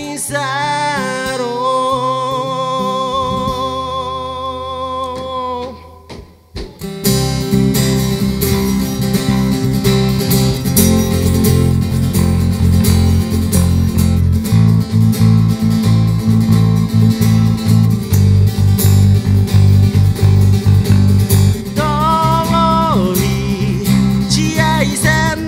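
Live band song: a male voice holds a long sung note over acoustic guitar, then after a short break about six seconds in the full band comes in, with acoustic guitars, bass guitar and cajon playing an instrumental passage with a steady beat. The singing comes back near the end.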